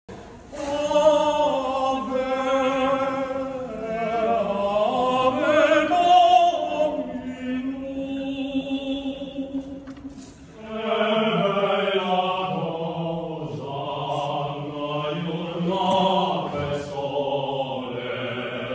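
Unaccompanied singing by men's voices, long held notes that glide up and down. It breaks off about ten seconds in and a second sung passage begins.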